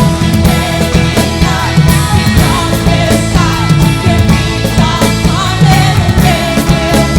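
Loud band music in a rock style, with a steady drum beat throughout.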